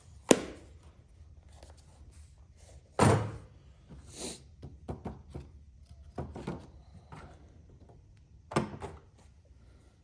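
Metal tools and parts clunking as they are handled and set down on a workbench: a sharp knock just after the start, the loudest thunk about three seconds in, scattered clicks, and another knock near the end.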